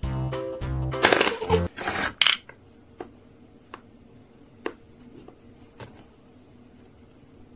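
Background music briefly at the start, then a loud rustling scrape, followed by a few light clicks and taps as a miniature glass bottle and its cork are handled and set on a tiled counter.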